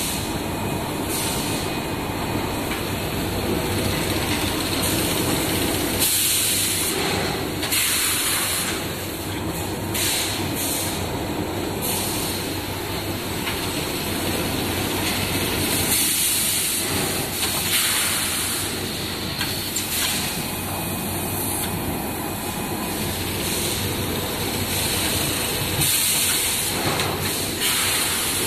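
Automatic sack-filling machine running steadily, with short hisses of air from its pneumatic actuators every few seconds as the bag-placing mechanism works.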